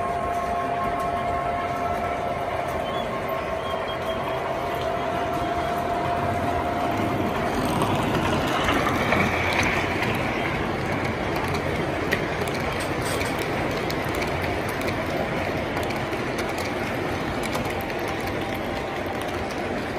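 An MTH O-gauge model train rolls past close by, its cars' wheels rumbling and clicking along the track. A steady hum sounds under it at first and fades out about seven seconds in. The sound swells a little around nine to ten seconds as the cars pass nearest.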